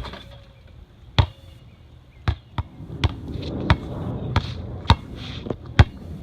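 A basketball bouncing on a hard court: a string of about ten sharp bounces at an uneven pace, some close together and some a second apart.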